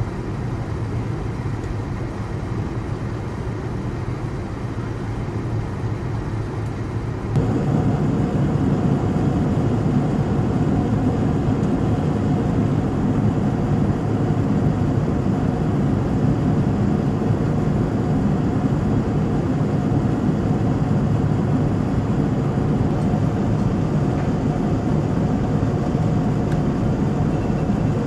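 Steady rushing hum of a Boeing 787-9 heard inside the cabin: engine and airflow noise. It steps up suddenly to a louder, fuller level about seven seconds in.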